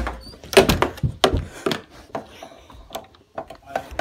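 Irregular knocks and bumps, several in the first two seconds and more near the end, with soft rubbing in between, in a small room.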